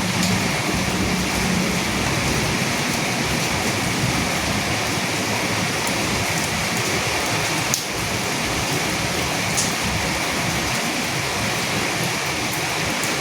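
Steady rain falling, with a few single louder drops ticking out of the hiss.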